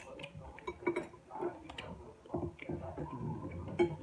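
Close-up eating sounds of deep-fried fish: chewing with irregular small clicks and taps of a fork against a plate.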